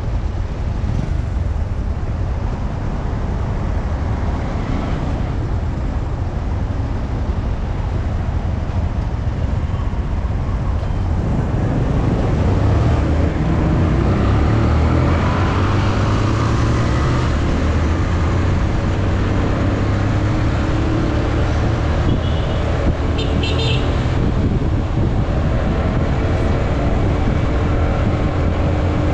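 Motorcycle riding on a road: the engine running, with a steady rumble of wind and road noise on the action camera's microphone. The engine note comes up and the sound gets louder about halfway through.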